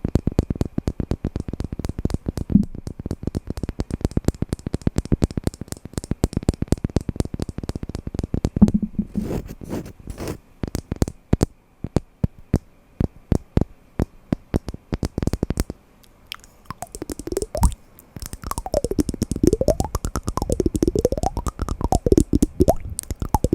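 Wooden blocks being knocked and tapped in rapid, irregular clicks, sparser around the middle. In the last several seconds, squeaky tones rising and falling in pitch sound among the taps.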